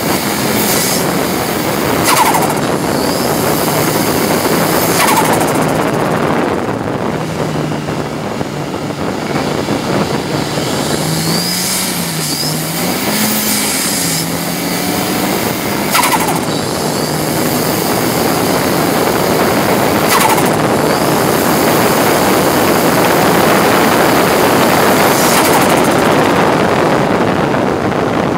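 Ford Sierra RS Cosworth's turbocharged four-cylinder engine running hard at racing speed, heard from inside the stripped cabin along with wind and road noise. Five short sharp cracks come a few seconds apart.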